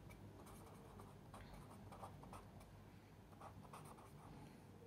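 Felt-tip marker writing on a sheet of paper: faint, short scratching strokes of the tip.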